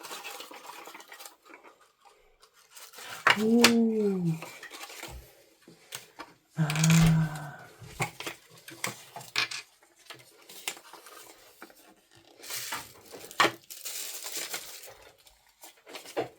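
A small toy box's cardboard and plastic packaging being handled and opened by hand, with scattered clicks, rustles and tearing. A falling 'ooh' comes about three and a half seconds in, and another short vocal sound about seven seconds in.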